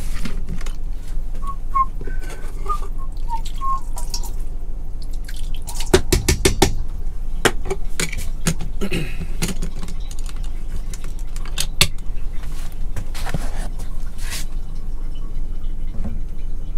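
Clicks, knocks and light clatter of a plastic drink bottle and its screw lid being handled on a wooden counter, with a few short high chirps in the first few seconds and a low steady hum underneath.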